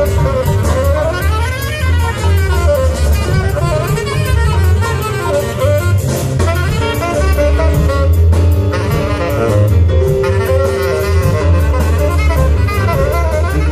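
Live big band jazz: a saxophone plays fast, flowing solo runs over bass and drum kit with steady cymbal strokes.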